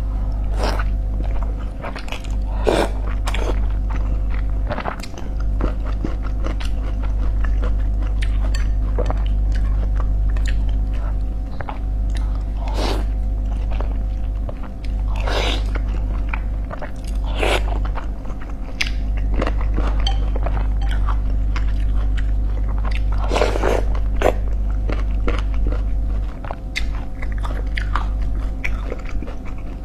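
Close-up mouth sounds of someone eating: chewing, lip smacks and sharp clicks at irregular intervals, over a steady low hum.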